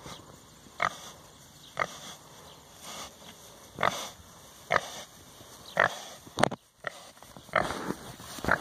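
A show pig grunting, with short grunts about once a second.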